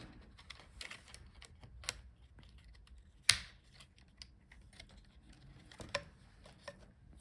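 Scattered light clicks and taps of hand work on a laptop's internals as the Wi-Fi card's antenna wire connectors are unsnapped, with one sharper click a little over three seconds in.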